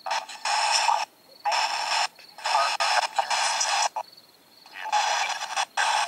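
Small portable speaker held to the ear playing back a heavily boosted, hissy audio recording, heard as about five bursts of tinny hiss that start and stop abruptly with short quiet gaps between them.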